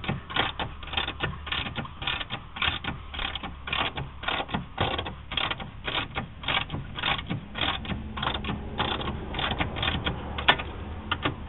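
Hand ratchet wrench clicking in quick runs, a few clicks a second, as its handle is swung back and forth to turn out a suspension bolt that takes a long time to come out. One sharper click comes near the end.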